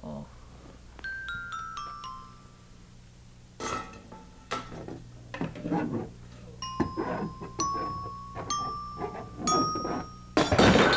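Mallet-percussion sound effects, glockenspiel-like notes: a quick descending run of five notes, then single notes stepping upward in pitch. Clattering knocks and rattles come in between and alongside the notes, and the loudest clatter comes near the end.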